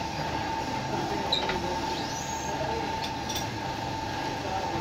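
Steady machine drone with a constant hum, broken by a few sharp metal clicks as a chuck key turns the jaws of a lathe's four-jaw chuck.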